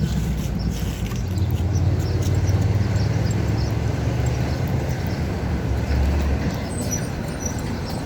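Steady low rumble of a motor vehicle on the move: engine and road noise, with faint light ticks over it.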